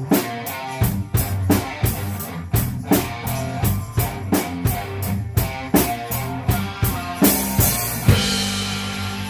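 Rock music with drum kit and electric guitar on a steady beat; near the end a cymbal crash and a held chord ringing out.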